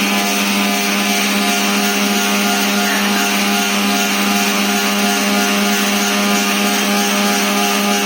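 Grinder machine running steadily under power: a constant hum with a hiss over it, unchanging in level or pitch.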